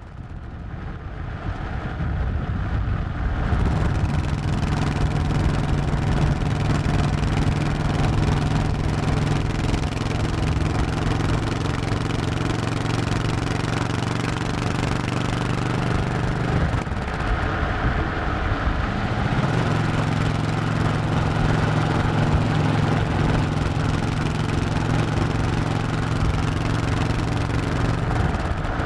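Honda 1100cc motorcycle engine running at a steady cruising pace, recorded from the bike, fading in over the first few seconds. Just past the halfway point the steady note breaks off for a couple of seconds, then settles back to a steady pitch.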